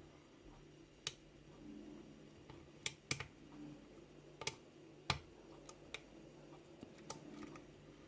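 Metal lock pick clicking against the pins of a kik cylinder lock during picking: faint, sharp, irregular clicks, about eight in all, sometimes in quick pairs.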